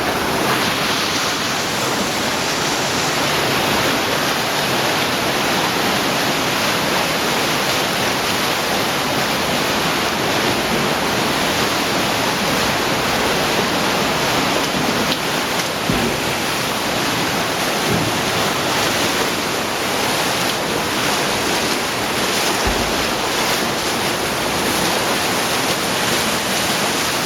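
Fast-flowing cave stream in near flood, rushing and cascading loudly and steadily.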